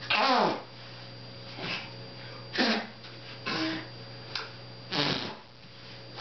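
A 13-month-old baby lying face down makes about six short, fussy cries and grunts while a disposable diaper is fastened on. The first is the loudest and falls in pitch.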